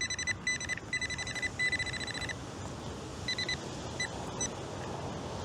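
Nokta Triple Score metal detector sounding a high warbling tone in a run of short bursts, then a few brief blips, over a target that reads 42 to 44: a coin, a penny.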